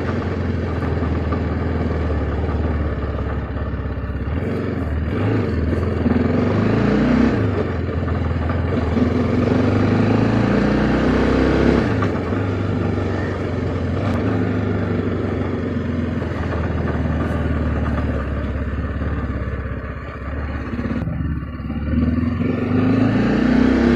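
TVS Apache RR 310's single-cylinder engine running while the bike is ridden, its note rising and falling several times as the throttle is opened and closed. This is riding with the throttle coming on and off, where the owner hears a knocking ('tok tok tok') from the chain off-throttle and suspects the chain touching the mudguard.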